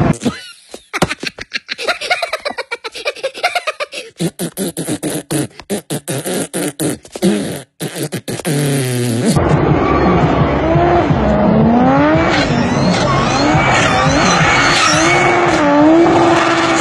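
For about the first nine seconds, a cartoon Minion voice beatboxing, with rapid sharp mouth clicks and pops. After that, a car engine revving up and down hard under continuous tyre squeal during a smoky burnout.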